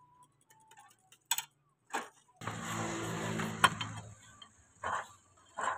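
Metal straightedge being drawn across a plaster-filled mould to level the wet gypsum: a rasping scrape lasting about a second and a half, with several short sharp knocks and taps of the tool against the mould and bench before and after it.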